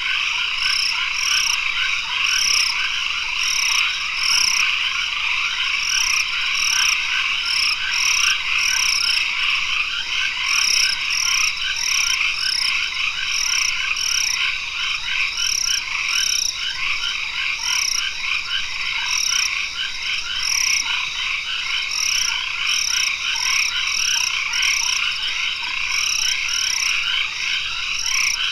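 Dense tropical forest chorus, mainly frogs: a thick mass of fast overlapping calls, a steady high whine beneath it, and a short high call repeating about twice a second.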